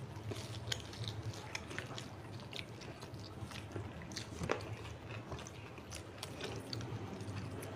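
Close-miked eating by hand: chewing and small wet mouth clicks, with fingers mixing rice and curry on a banana leaf, over a low steady hum.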